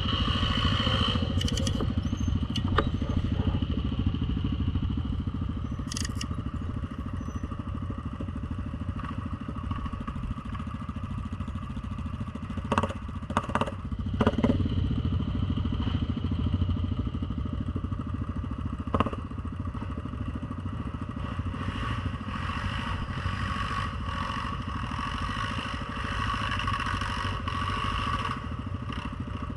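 ATV engine running steadily, with a few sharp knocks and clatters over it, the loudest a cluster about 13 to 15 seconds in.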